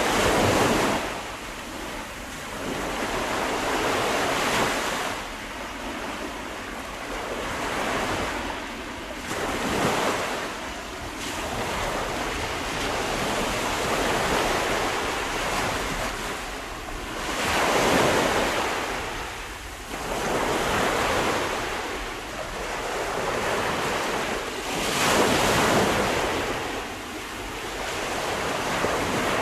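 Ocean waves breaking and washing up a shore, each surge swelling and fading over a few seconds, the loudest about 18 and 25 seconds in.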